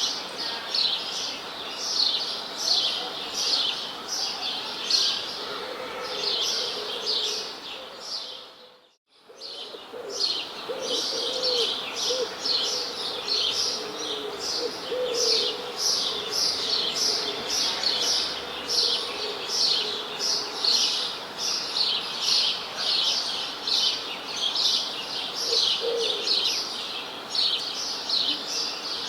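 Many songbirds chirping in a dense chorus of rapid, high, short chirps. The sound briefly fades out and back in about nine seconds in.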